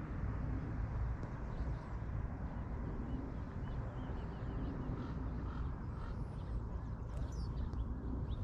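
Wind buffeting the microphone as a steady low rumble, with a few faint bird chirps about halfway through and again near the end.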